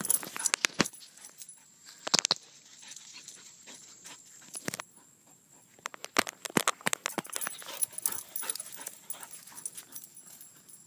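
An Airedale terrier running about, with scattered sharp knocks and rustles that come in clusters: near the start, around two seconds in, and most between six and eight seconds in.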